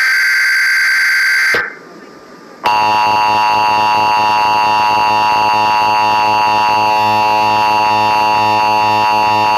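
Emergency Alert System alert tones. A harsh, buzzing data header burst lasts about a second and a half. After a short gap, the loud, steady two-tone EAS attention signal starts and holds.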